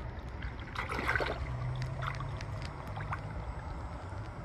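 River water splashing and lapping around a cat as it wades off the bank and starts to swim, with small splashes clustered about a second in over a steady low rumble.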